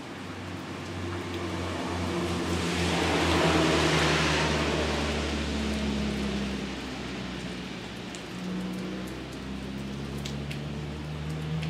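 A motor vehicle passing, its hum and hiss swelling to loudest about four seconds in and then fading, with rain falling throughout.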